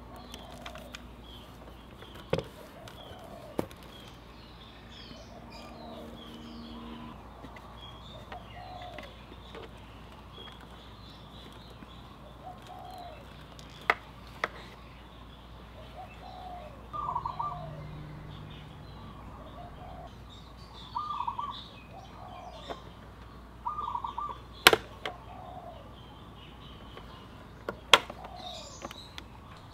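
Birds chirping in the background, with sharp clicks and light rattles of plastic electrical connectors and wiring clips on a scooter being pried and unclipped by hand and with a flathead screwdriver. The loudest clicks come twice, near the end.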